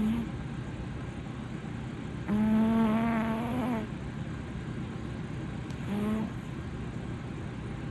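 British shorthair cat snoring, loud and pitched, in a low buzzing drone. There is the tail of one snore at the start, a long drawn-out snore about two seconds in that lasts about a second and a half, and a short one around six seconds in.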